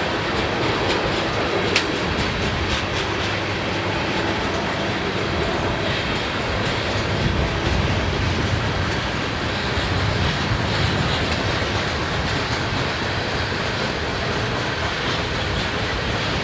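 Loaded coal train rolling past: a steady rumble of wheels on rail, with repeated clicks of the wheels over the track and one sharper click about two seconds in.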